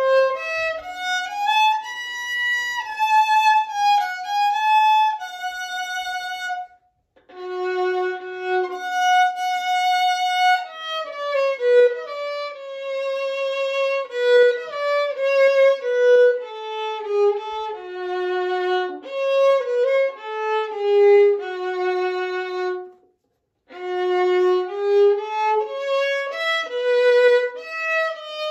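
Unaccompanied solo violin playing a Uyghur melody phrase by phrase, with vibrato on the held notes. It stops briefly twice between phrases, about a quarter of the way in and again near the end.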